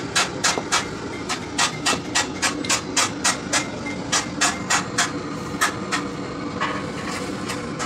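Hammer striking a metal rod held against the metal header plate of a new copper-finned radiator core: about three to four sharp metallic taps a second, fewer and softer near the end. This is the header being worked onto the core while the new radiator core is fitted.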